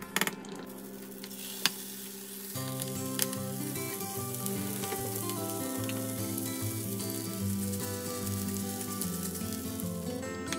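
Food sizzling in a hot pan, a steady frying hiss, with a few sharp clicks of a spoon against the pan in the first few seconds. About two and a half seconds in, background music comes in under the sizzle.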